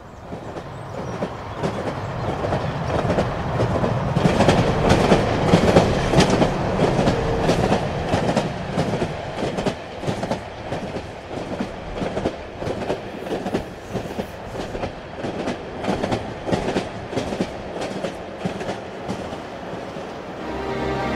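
Steady rumbling noise with frequent irregular clattering clicks, fading in over the first few seconds; music begins right at the end.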